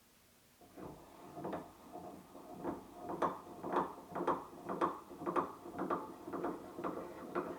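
Restored York 100 cast iron bench vise being worked: a regular run of metallic clacks, about two a second, growing louder, each with a short ring.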